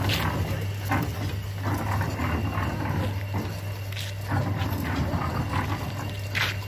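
Cement brick-making machine running with a steady low hum, with a few short sharp sounds over it: one right at the start, one about a second in, one about four seconds in and a louder one near the end.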